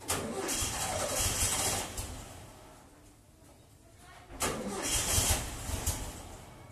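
Volkswagen Beetle's air-cooled flat-four being cranked on the starter twice, each try lasting about two seconds and fading out without the engine settling into a run. It is a hard start on a car that has stood unused for a long time.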